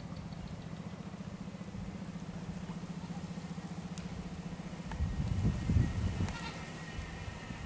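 A steady low hum with a fast pulse, a few heavy low thumps about five seconds in, then a drawn-out animal bleat near the end.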